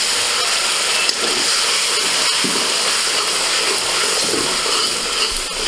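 Steady, loud sizzling hiss as a little water hits onion, garlic and chili paste frying in hot mustard oil in a metal kadai, the water boiling off the hot oil.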